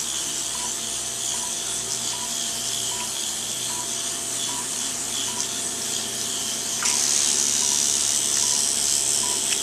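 Liposuction suction running through a 3-millimetre cannula: a steady hiss of aspiration that gets louder and brighter about seven seconds in. Short, evenly spaced electronic beeps, a little under two a second, sound alongside it.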